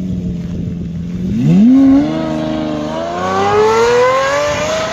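Car engine idling steadily, blipped up in revs about one and a half seconds in, then climbing smoothly in pitch through the revs as the car accelerates.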